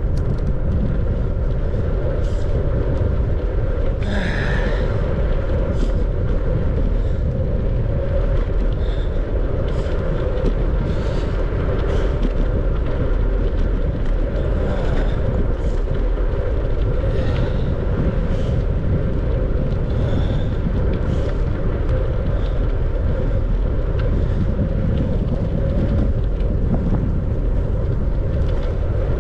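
Steady rush of wind on the microphone and bicycle tyre noise from riding at speed, with faint ticks now and then.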